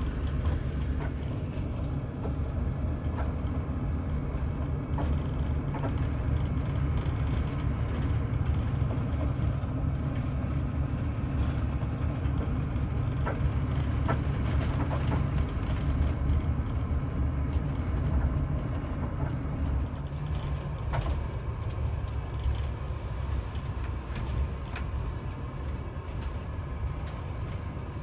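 Steady low rumble of a bus's engine and tyres on the road, heard from inside the passenger cabin, with a few faint rattles. The rumble eases slightly about twenty seconds in.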